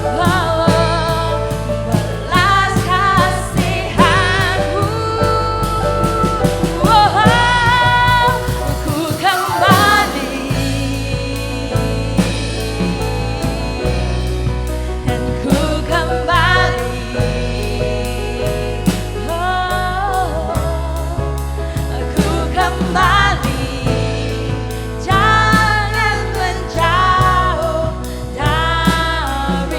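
Live worship music: a singer's voice over a band, a slow gospel-style praise song.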